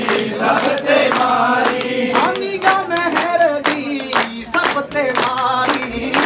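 A group of men singing a Punjabi devotional bhajan together, with a quick, steady beat of handclaps under the voices.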